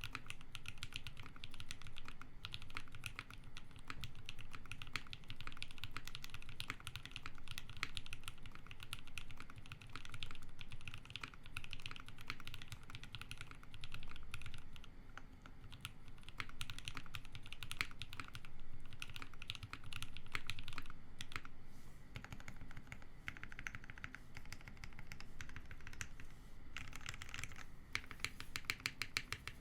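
Continuous typing on a custom 60% mechanical keyboard with lubed Everglide Sakura linear switches (Gateron milky top housings, TX 55g long springs) on a polypropylene plate in a foam-dampened case: a steady stream of creamy keystrokes, with a faster, brighter flurry near the end.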